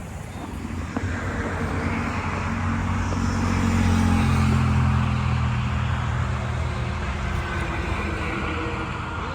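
A motor vehicle passing on a road: a low engine and tyre hum that builds to a peak about four seconds in, then fades away.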